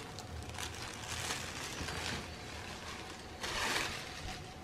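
Rustling of a 100% cotton jersey t-shirt being unfolded and handled, in a few short swishes, the loudest about three and a half seconds in.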